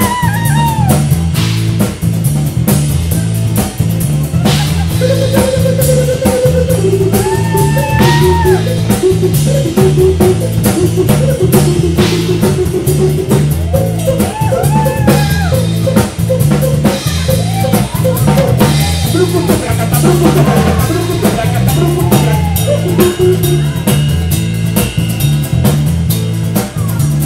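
Live band playing: electric bass and drum kit keeping a steady groove under strummed acoustic guitar, with a lead melody that slides up and down in pitch over the top.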